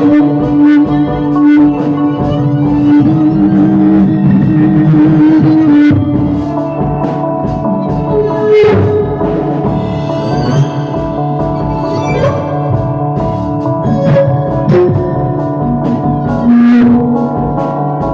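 Music with guitar and drums and a steady beat.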